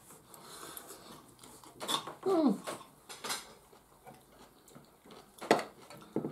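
Steel knives and forks clinking and scraping on ceramic dinner plates while food is cut and eaten, with sharp clinks about two, three and a half and five and a half seconds in. A short pitched sound gliding downward, a voice-like hum or whine, comes just before the middle and is the loudest moment.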